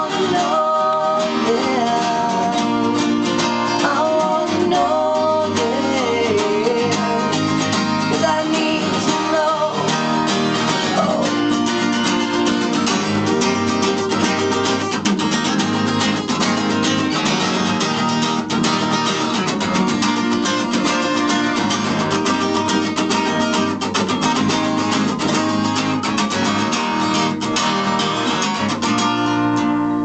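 Two acoustic guitars played live together, strummed and picked through a song at a steady level.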